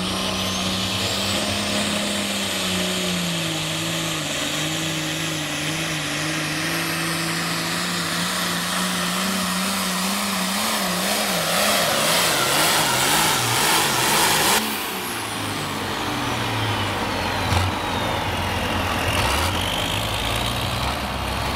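Turbocharged diesel engine of an Allis-Chalmers Pro Farm pulling tractor running flat out under the sled's load, its pitch sagging and wavering as it digs down the track. About fifteen seconds in, the throttle is cut suddenly and the engine drops back, with a high turbo whine winding down.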